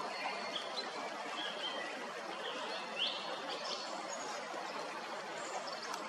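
Song thrush singing a string of short, high notes, the loudest a rising note about halfway through, over the steady rush of a spring meltwater stream.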